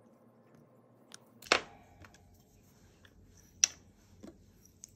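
Small nail-art bottles and tools being handled on a hard work table: a few sharp clicks and knocks, the loudest about a second and a half in with a brief ring, another near the middle and a faint one soon after.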